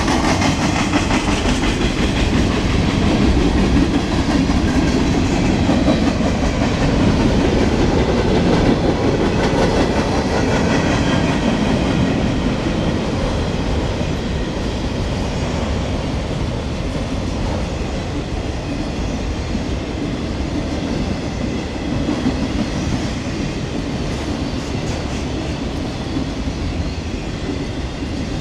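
Freight train cars rolling past close by: a steady rumble and rattle of steel wheels on the rails, from covered hoppers and then autorack cars. It eases slightly in loudness in the second half.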